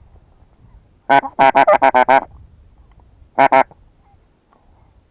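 Goose call blown close by, luring a passing flock of geese: a quick run of about seven loud honks, then a pair of honks about a second later.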